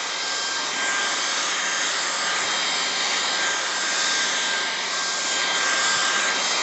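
Dreametech R10 cordless stick vacuum running on its high power setting: a steady, loud rush of suction with a high whine over it.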